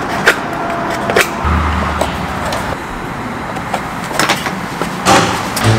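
Scattered light taps and clicks of small wood pieces being handled and pressed into a gap, over a steady background hiss.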